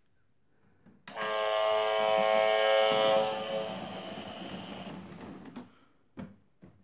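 Small electric motor of a toy ship buzzing steadily. It starts suddenly about a second in, then fades out over the next few seconds.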